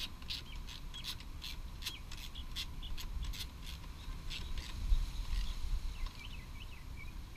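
A run of short metallic clicks, about three a second, thinning out in the second half, as a socket wrench runs in the scooter's rear bracket bolts, with a dull knock about five seconds in.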